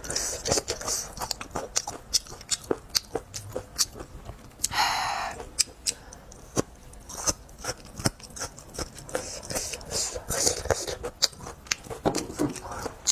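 Close-miked chewing of chili-coated meat strips, with many sharp wet mouth clicks and small crunches. A brief breathy rush of air comes about five seconds in.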